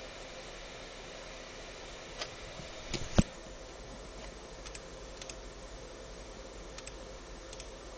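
Steady hiss with a faint hum, broken by a few small clicks and, about three seconds in, a quick cluster of knocks ending in one sharp loud knock.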